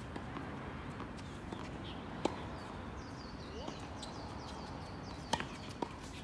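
Sharp hits of a racket on a ball or shuttlecock in a doubles rally: one about two seconds in and two close together near the end, over steady hall noise, with short high squeaks.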